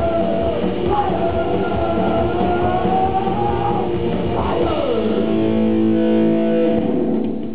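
Live rock band playing loud, guitar-led music. About four and a half seconds in, a guitar note slides down into a held chord, and the level drops just before the end.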